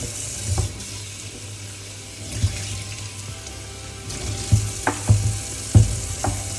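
Tap water running as garlic cloves are rinsed, a steady hiss, with several short knocks of things being handled, most of them in the second half.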